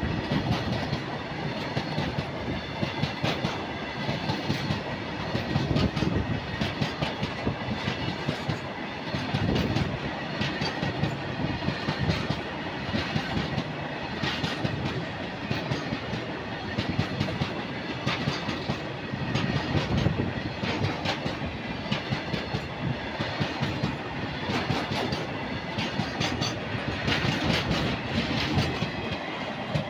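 Freight train of loaded oil tank wagons passing at close range: a steady rumble of the wagons, with wheels clicking and clacking over the rail joints in repeated groups. A faint steady high whine runs underneath.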